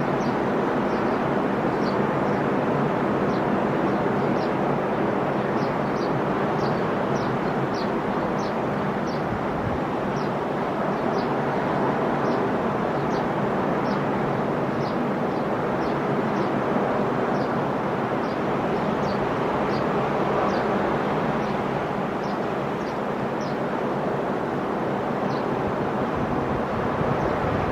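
Ocean surf: a steady, continuous wash of breaking waves.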